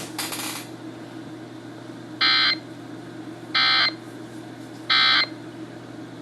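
Emergency Alert System end-of-message signal: three short bursts of warbling digital data tones, each under half a second and a little over a second apart, over a steady low hum.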